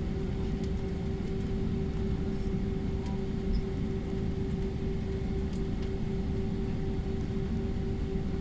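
Steady low rumble with a constant hum inside a jet airliner's cabin, from the engines and cabin air system.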